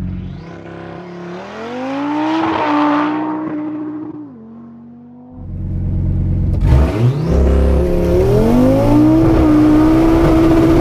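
Audi TT RS drag car's turbocharged five-cylinder engine at full throttle on a 0-60 mph launch, the revs climbing and dropping back through several gear changes. About four seconds in it falls to a quieter, steady note for about a second, then comes back loud and keeps pulling through more shifts.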